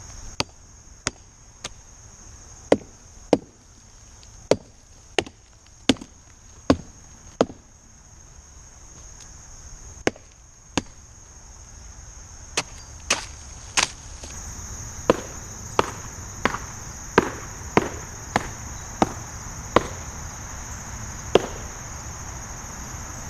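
Hatchet chopping into the trunk of a dead tree with repeated sharp strikes, roughly one a second, with a short pause midway. The chopping is digging through rotten outer wood to test how much solid wood is left for a felling hinge. A steady high tone carries on behind the strikes.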